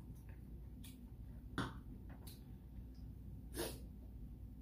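Short mouth and throat noises from a person: four brief sharp sounds over a faint low hum. The loudest comes about a second and a half in, and a longer, breathier one follows near the end.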